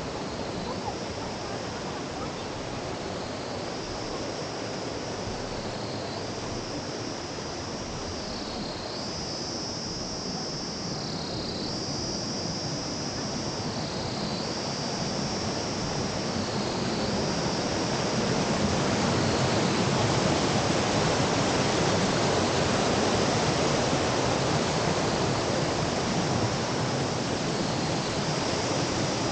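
A river rushing steadily, growing louder about two-thirds of the way through. Over it is a high insect buzz that swells and dips in repeated phrases about every two seconds.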